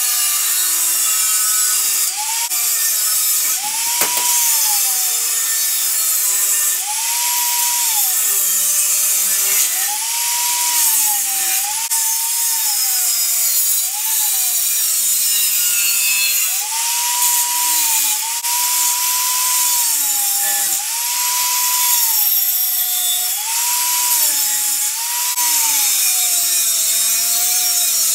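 Angle grinder with a cutting disc slicing through a steel saw blade: the motor's whine sags in pitch again and again as the disc bites into the steel, then climbs back as the cut eases, over a steady harsh hiss of grinding.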